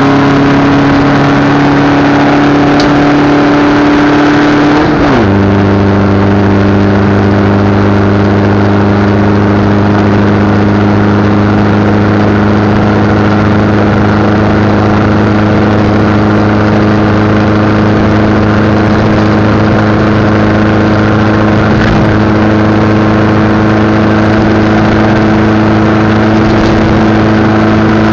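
Racing engine heard from an onboard mic, loud and running at steady high revs. About five seconds in the pitch drops sharply as the revs fall, then holds steady with a slow climb.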